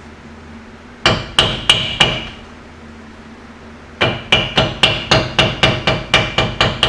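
Hammer strikes driving a new pinion seal into the rear differential housing: four ringing metallic blows about a second in, then after a pause a steady run of quick taps, about four a second.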